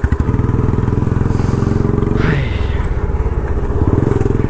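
Royal Enfield Bullet's single-cylinder engine running under way with a steady, even beat; about halfway through the engine note changes.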